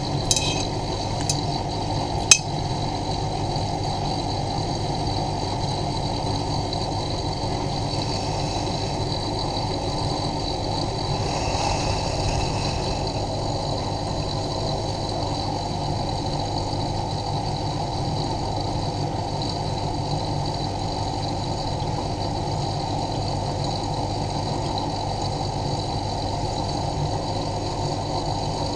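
Miele Novotronic W923 washing machine taking in water: a few clicks in the first couple of seconds, then a steady hiss of water flowing into the machine.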